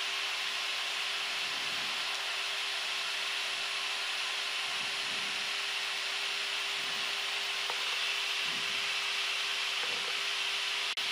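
Steady rush of air noise on the flight deck of a Gulfstream G-IV jet in the climb, an even hiss with a faint steady hum beneath it.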